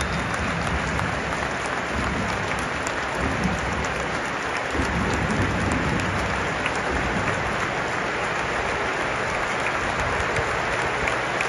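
Large stadium crowd applauding, a steady, unbroken wall of clapping.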